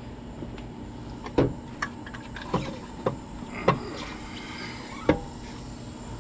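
About six scattered knocks and clunks as an aluminium intercooler and its charge pipe are handled and set into place in an engine bay.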